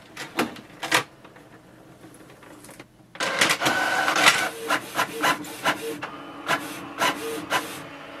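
Canon PIXMA MG2524 inkjet printer making a copy: two clicks in the first second, then about three seconds in the printer starts up and feeds and prints a page, a steady whir with many repeated clicks.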